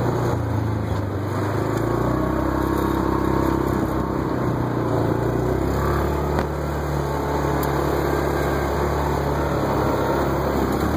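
Yamaha Rhino side-by-side's single-cylinder engine running steadily as it drives along a dirt trail, with a faint haze of wind and tyre noise over the engine hum.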